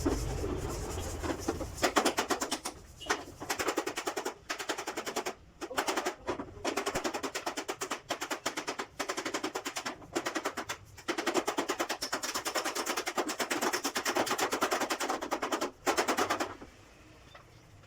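Rapid, closely spaced hammer strikes on sheet metal, in long runs broken by brief pauses, stopping near the end.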